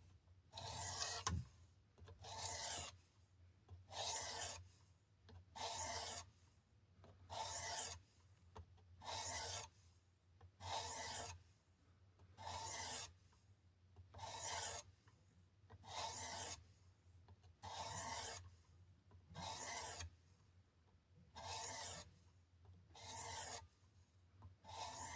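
A 600-grit sharpening stone on a Work Sharp precision sharpener scraping along a knife's edge in slow, even strokes, about fifteen rasping passes, each roughly one every 1.7 seconds.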